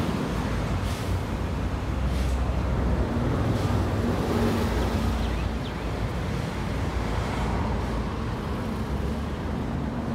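Steady low rumble of road traffic, mixed with wind on the microphone.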